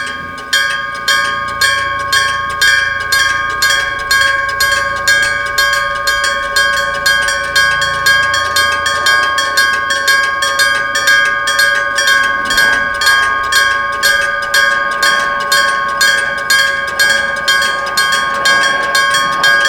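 Electric gong bell of a Japanese railway level crossing (denshō), its hammer striking the metal gong over and over at a fast, even rate. Each stroke rings on into the next, so the tone never dies away. It starts suddenly as the crossing's warning activates.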